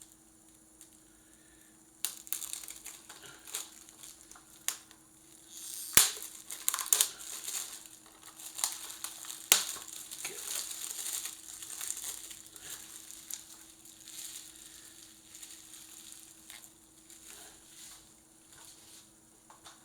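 Plastic shrink-wrap being peeled off a disc case and crumpled: crinkling and crackling with a few sharp cracks, starting about two seconds in and thinning out near the end.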